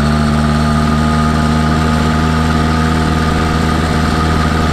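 Two-stroke YD-100-type motorized bicycle engine with a reed valve, idling steadily at an even pitch.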